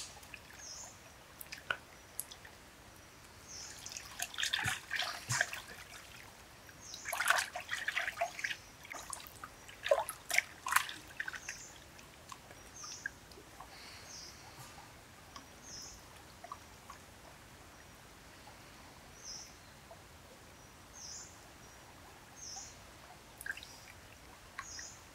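Water sloshing and trickling in a pan as hands rub and squeeze raw pig intestines in it, in three splashy bouts over the first half. A bird gives short high chirps about every second and a half through the second half.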